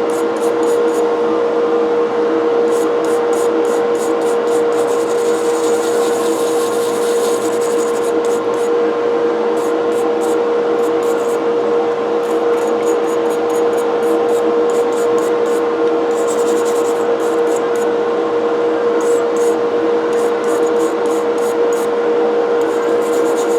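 Powered wire brush running with a steady whine while it scrubs the cast iron parts of an old coffee grinder clean. The bristles scrape the metal in repeated short bursts.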